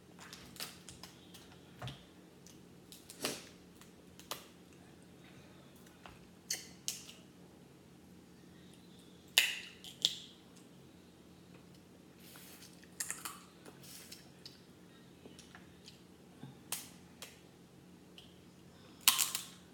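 Crab leg shells cracking and snapping as they are broken apart by hand: scattered sharp cracks, the loudest a cluster near the middle and another near the end.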